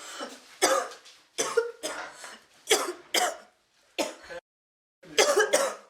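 A young woman coughing hard, about eight harsh coughs in quick fits with a short pause about four and a half seconds in, from breathing thick stage smoke.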